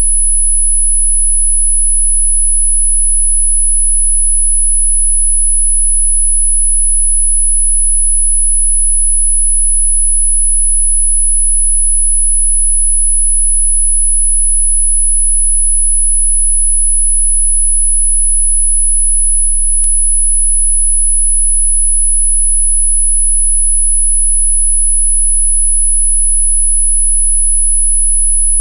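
An electronically generated pure sine tone held at one very high pitch without change, played as a 'healing frequency' for hiccups, with a faint low hum beneath it. A tiny click comes about two-thirds of the way through.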